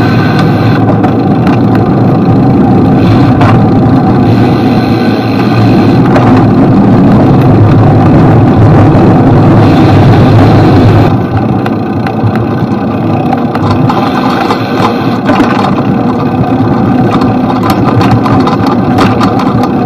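Steady, loud road noise of city traffic heard from a moving bicycle, easing slightly about eleven seconds in.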